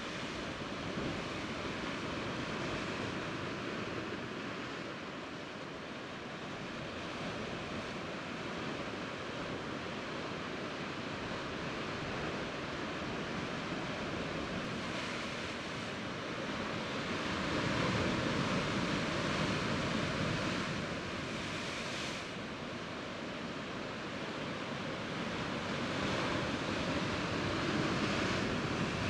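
Sea surf washing against a rocky shore, a steady rush that swells louder twice, about two-thirds of the way through and again near the end.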